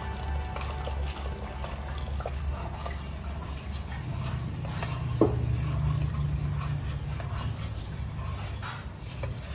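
Liquid poured from a pitcher into a stainless pot of corn kernels, then a metal ladle stirring, with one sharp clink of ladle on pot about five seconds in, over a steady low rumble.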